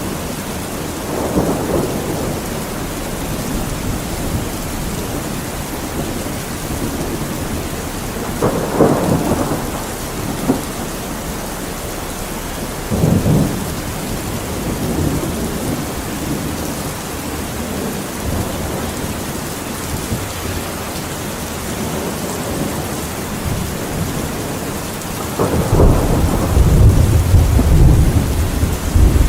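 Steady rain with thunder: a few short claps in the first half and a long, loud, low rumble near the end.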